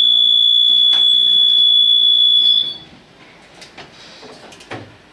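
Tatra T6A5 tram's door-closing warning signal: one loud, steady, high-pitched beep lasting about three seconds that cuts off sharply. A few faint clicks and knocks follow.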